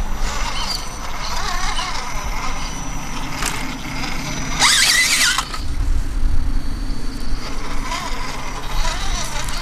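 Electric motor and geartrain of a small radio-controlled rock crawler whining as it creeps over rocks, the pitch rising and falling with the throttle, with one brief louder burst about five seconds in.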